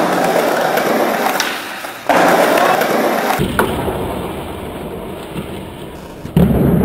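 Skateboard wheels rolling over paving stones, broken by several sharp clacks and thuds as the board is popped and slaps back down, the loudest thud near the end.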